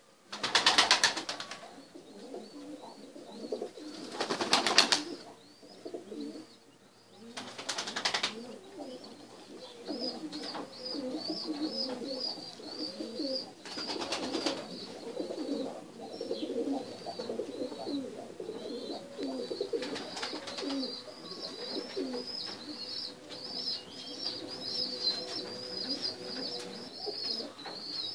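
Sebap pigeons cooing over and over, one male strutting with its tail spread in courtship display. A higher, fast twittering joins from about ten seconds in, and a few short loud rushes of noise come in the first half.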